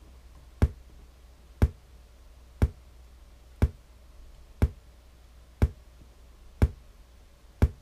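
Sharp test pops from a speaker polarity-test track, about one a second, eight in all, played through a subwoofer wired with reversed polarity. The track sets three pops in phase against one inverted pop.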